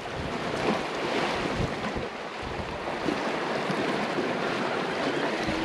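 Wind buffeting the microphone over the sea washing against the rocks below, a steady rushing noise with gusts.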